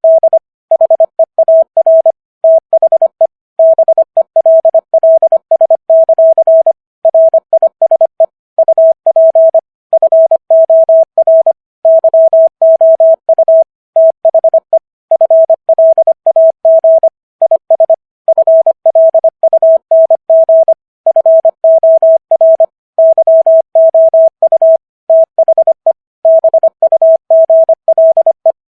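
Morse code at 25 words per minute: a single pure tone keyed on and off in rapid dots and dashes, with short gaps between letters and longer gaps between words. It is rendered code-practice audio of the text of Walt Whitman's poem "O Captain! My Captain!"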